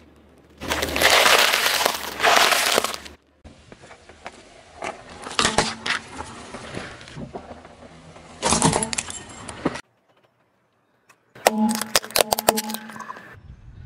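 A car tyre rolling over and crushing things on asphalt, in a series of short clips: first a long, loud crunch of romaine lettuce being flattened, then scattered snaps and cracks of plastic breaking with a louder crunch near the middle, and near the end a quick run of sharp cracks as plastic yo-yos are crushed.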